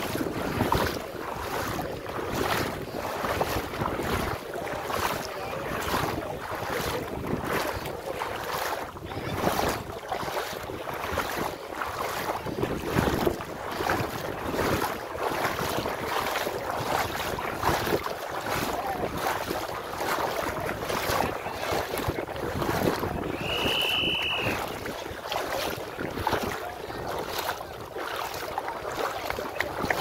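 Legs wading through knee-deep seawater, a steady rhythmic sloshing and splashing with each stride, with wind buffeting the microphone. A brief high whistle-like tone sounds once, a little past the middle.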